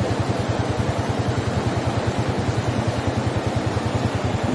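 Floodwater of a swollen river rushing as a steady, even noise, with a rapid, regular low throbbing underneath.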